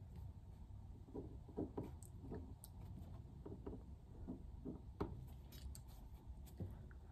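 Ballpoint pen writing on a sheet of paper on a table: a run of short, irregular strokes, with a sharper tick about five seconds in.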